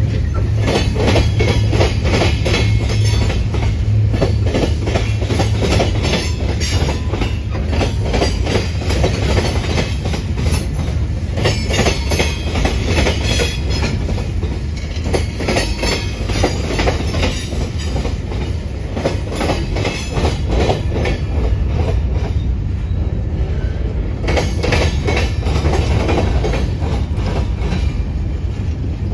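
Freight cars of a Union Pacific mixed freight (covered hoppers, a coil car, boxcars) rolling past: a steady loud rumble of steel wheels on rail with constant irregular clicking and clanking.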